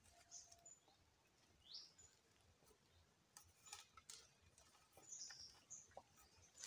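Near silence with a few faint bird chirps, one a quick rising chirp, and several light clicks from wooden slats being handled on a makeshift table.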